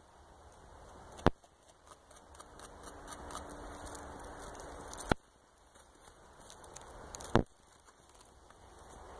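Young North American beaver gnawing bark off a branch: a run of small crunching, crackling and tearing sounds from its teeth on the wood, with three sharp snaps about a second, five seconds and seven seconds in.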